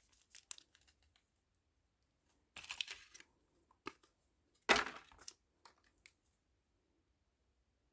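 Small plastic bag of miniature ice cubes being handled: brief plastic crinkling with sharp clicks of small hard pieces, the loudest snap a little before the middle, then a few faint ticks.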